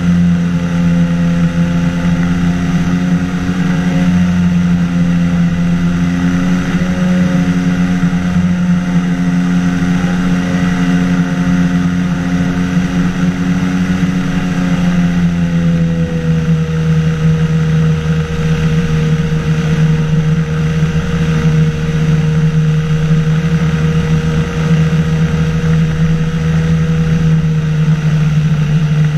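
Engine and pusher propeller of an inflatable-hulled microlight flying boat droning steadily in flight, over a constant rushing noise. About fifteen seconds in the pitch drops a little as the engine slows, then holds steady.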